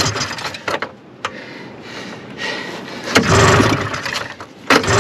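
Recoil starter of a 1974 Arctic Cat Lynx 340 snowmobile's fan-cooled two-stroke engine being pulled, with two hard pulls about a second and a half apart near the end and sharp clicks between them. The engine cranks but does not catch and run, hard starting on stale fuel after sitting for years.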